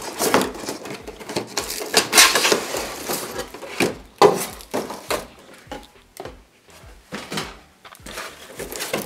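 Cardboard figure box opened from the bottom and a clear plastic blister tray slid out by hand: cardboard scraping and rustling with plastic crinkling, and a sharp knock about four seconds in as the tray is handled.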